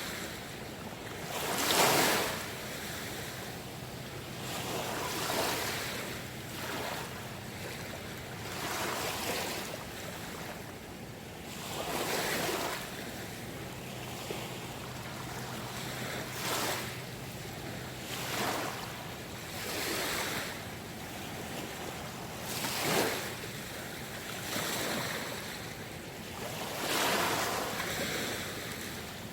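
Small sea waves breaking and washing in, one swell every two to three seconds, the loudest about two seconds in and another strong one about two-thirds of the way through.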